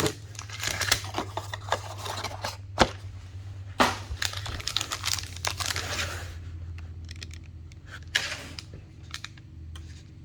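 Trading card pack wrapper being torn open and crinkled, a dense run of crackles and rips that thins out to scattered crinkles about six seconds in, over a steady low hum.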